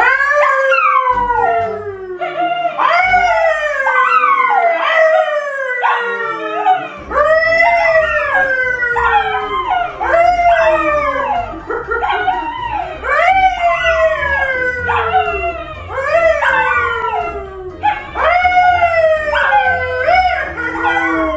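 A man and a brown poodle howling together: a long string of overlapping howls, each rising briefly and then sliding down in pitch, about one a second.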